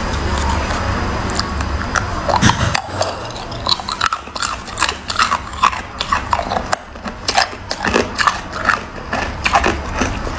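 Ice cubes cracking and clicking in a green silicone honeycomb ice-cube tray as it is pressed and flexed to loosen them: irregular sharp cracks, coming thicker after the first few seconds.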